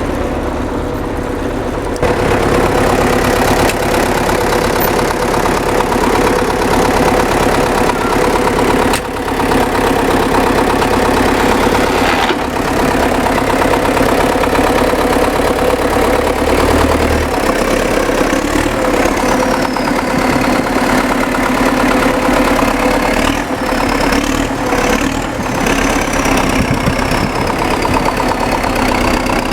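MTZ-1025.2 tractor's diesel engine idling steadily. It gets louder about two seconds in, and a couple of sharp knocks come partway through.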